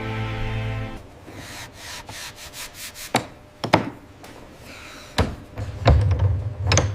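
Rubbing and scraping strokes, broken by several sharp knocks, after a second of music.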